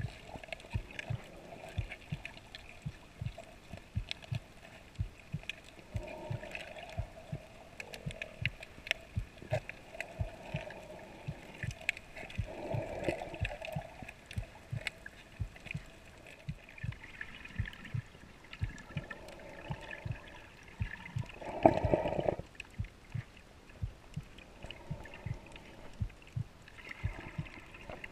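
Underwater sound heard through an action camera's waterproof housing while snorkeling over a coral reef: irregular clicks and knocks with muffled gurgling water noise, swelling into a louder rush of water a couple of times, most strongly about three-quarters of the way through.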